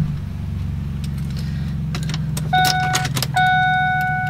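Supercharged 5.4-litre V8 of a Ford SVT Lightning idling steadily, heard from inside the cab. About two and a half seconds in, a steady high tone comes on over the idle, with a short break.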